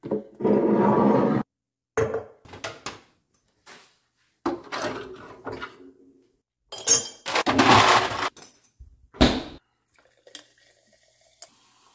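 Ice cubes and a glass mason-jar mug handled at a kitchen counter: a series of separate clinks and clattering rattles of ice against glass and a plastic freezer ice bin, the longest rattle about two thirds of the way through.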